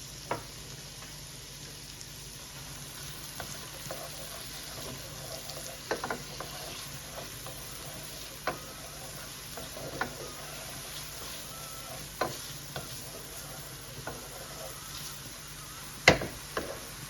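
Diced onions sizzling steadily in butter and olive oil in a pan, cooking down. A utensil stirring them clacks against the pan every couple of seconds, with the loudest knock near the end.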